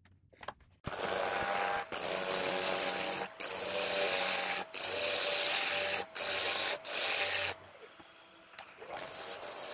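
A power tool cutting wood in a run of passes, starting abruptly about a second in and breaking off briefly about every second and a half. It goes quieter for a second or so near the end, then picks up again.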